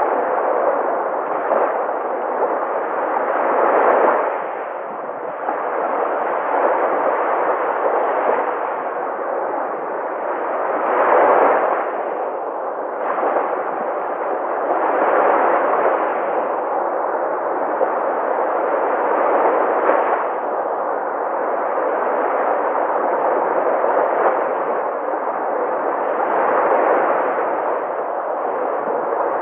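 Sea waves breaking and washing in, a continuous rushing noise that surges every few seconds. The biggest swells come about four and eleven seconds in.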